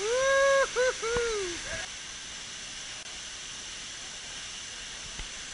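A person whooping, a long rising 'whoo' broken into three parts that falls away at the end, over a steady rush of waterfall water.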